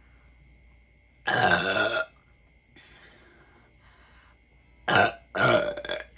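A woman burping loudly three times after drinking Sprite: one long burp about a second in, then two shorter burps close together near the end.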